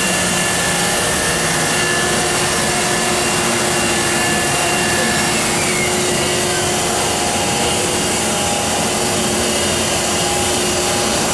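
Steady loud hiss and hum of the air blowers and vacuum pumps of a 1998 Komori L640 LX offset press running, with several thin steady whining tones over the noise.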